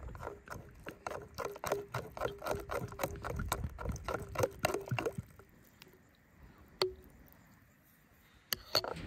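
Metal spoon clinking against a glass bowl, about four strikes a second, as it stirs a creamy cucumber-and-dill sauce while water is poured in. The stirring stops about five seconds in, followed by a few single clinks.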